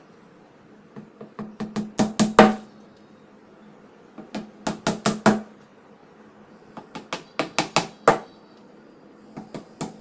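Hammer driving small nails through a thin fibreboard drawer bottom into the drawer sides: runs of quick strikes, each starting with light taps and building to harder blows as a nail is driven home. Three full runs, with a fourth starting near the end.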